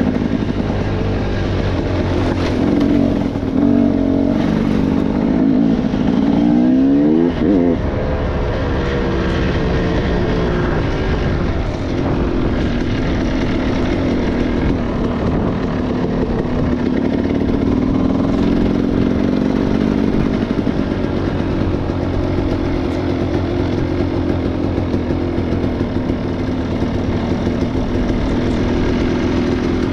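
Motorcycle engine running as it is ridden, its pitch swinging sharply up and down about seven seconds in, then holding steady.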